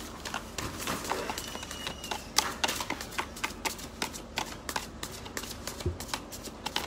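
A deck of chakra oracle cards being shuffled by hand: a run of quick, irregular card clicks and flicks, several a second.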